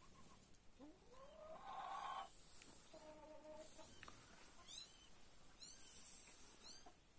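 Faint animal sounds: a drawn-out cry rising in pitch about a second in, a short steady call around three seconds, then a run of quick high chirps.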